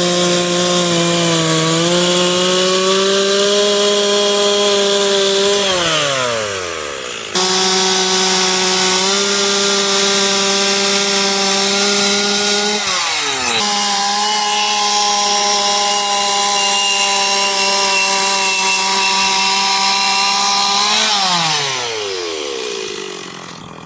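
Chainsaw running at high revs as it carves wood. Three times the throttle is let off and the engine note drops away. After the first two drops it snaps straight back to full revs; near the end it falls toward idle.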